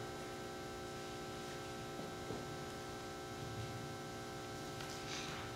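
Steady electrical mains hum from the microphone system over quiet room tone, with a faint rustle of paper near the end.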